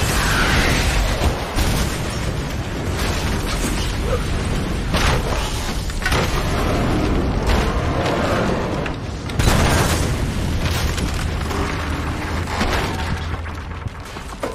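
A big explosion: a heavy booming rumble with repeated crashes and bangs of debris, a louder blast about nine and a half seconds in, dying away near the end.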